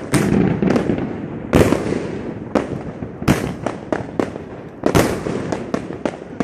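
Fireworks exploding all around: sharp irregular bangs and crackles, several close, loud reports about every second and a half over a continuous rumble of more distant fireworks.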